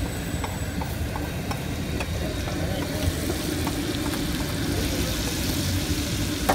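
Red beans in oily sauce sizzling on a large flat metal griddle. A metal ladle stirs and scrapes through them with small scattered clicks against the metal.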